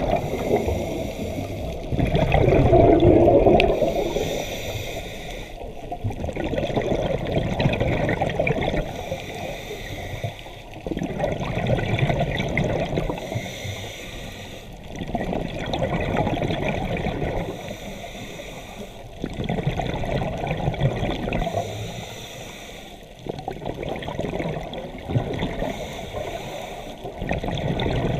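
Scuba diver breathing through a regulator underwater: exhaled bubbles gurgle out in surges about every four seconds, with a fainter hiss between them.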